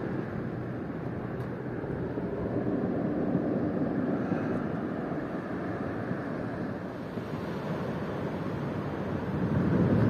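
Sea surf breaking and washing onto a pebble beach, swelling and easing, with wind rumbling on the microphone.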